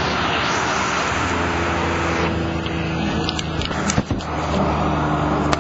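Highway traffic on a wet road: a steady hiss of tyres and spray, with a vehicle engine's low steady hum coming in about a second in. The hiss softens about two seconds in, and a few sharp clicks and a knock follow.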